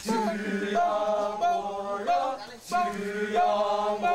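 Kecak chant: a chorus of Balinese men singing together, holding notes that step in pitch every half second or so, with a brief break about two and a half seconds in.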